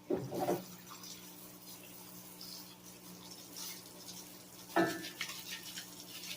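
Faint scrubbing and handling of a corroded engine crankcase half as it is cleaned, over a steady low hum, with a brief knock a little under five seconds in.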